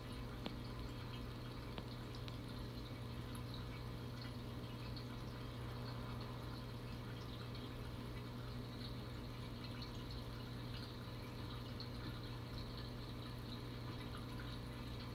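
Reef aquarium's water circulation running: a steady low hum with water trickling and dripping. A few faint ticks in the first couple of seconds.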